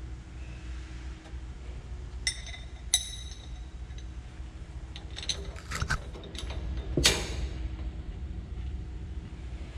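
Metal tools and parts clinking and tapping during work on a combine's chopper knives: a few sharp strikes that ring briefly, the loudest about seven seconds in, over a steady low hum.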